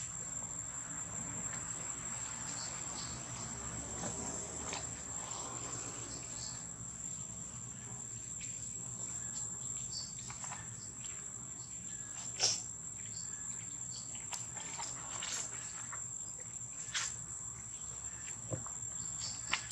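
A steady high-pitched insect drone, with a few sharp clicks scattered through it, the loudest about two-thirds of the way in.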